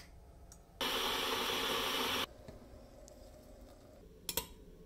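Click of a Black+Decker electric kettle's switch, then the kettle heating water: a steady rushing hiss for about a second and a half that cuts off suddenly. Near the end, a couple of light clinks of a metal spoon stirring tea in a glass.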